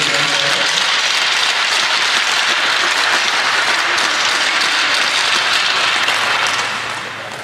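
Crowd applauding steadily, dying down near the end.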